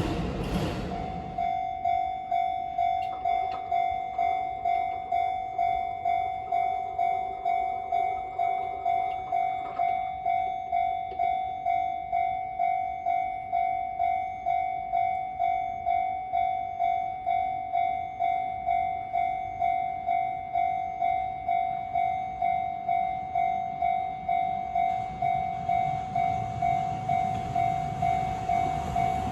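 Japanese level-crossing warning bell ringing, one high metallic tone struck about one and a half times a second. The noise of a passing train dies away in the first second, and a train can be heard coming near the end.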